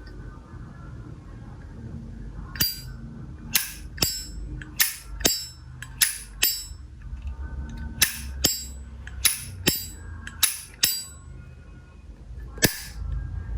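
Vintage brass Zippo lighter's hinged lid flicked open and snapped shut over and over, each time a sharp metallic clink with a short ringing tail, in pairs about half a second apart, about seven times. This is the lid 'sound' collectors judge a Zippo by.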